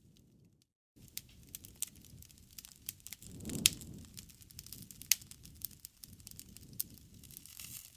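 Wood fire crackling, with many sharp pops and snaps over a low rush of burning, the loudest snap about halfway through. The sound cuts out completely for a moment near the start.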